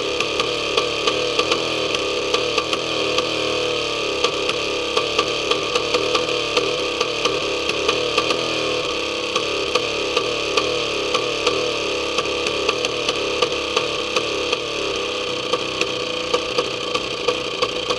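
Homemade 200cc inline-twin Husky engine running steadily at speed, driving a propeller, with sharp pops about twice a second through the drone.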